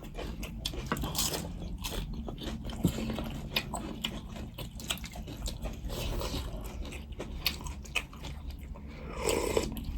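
Close-up mouth sounds of chewing and biting goat meat, with many small sharp clicks throughout.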